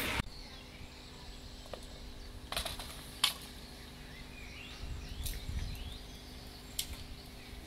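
Quiet outdoor ambience with faint bird chirps, a few sharp clicks, and a low steady hum.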